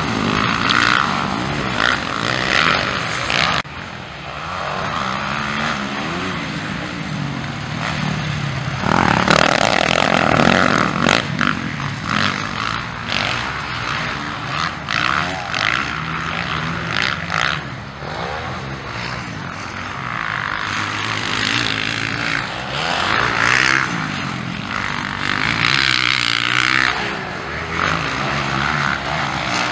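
Motocross dirt bikes racing on the track, engines revving up and down through the gears, the sound swelling and fading as bikes pass.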